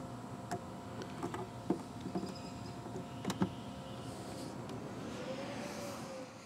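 A few small plastic clicks and knocks as an Anderson solar-input connector is pushed into the solar charging socket of a portable power station, over a steady faint hum.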